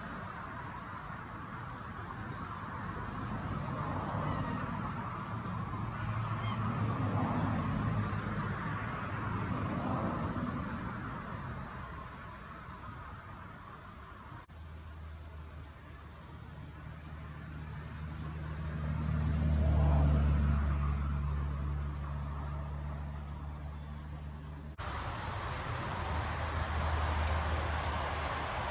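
Lakeside outdoor sound with waterfowl calling and small birds chirping faintly. In the middle a low engine drone swells to its loudest and fades away, as of something passing.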